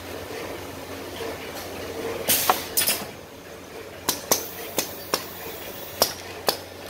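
Riveting machine on a stepper-driven rotary indexing table (GSB130) at work: sharp metallic clicks and knocks, about eight of them at uneven spacing, over a steady machine hum, with a short hiss about two seconds in.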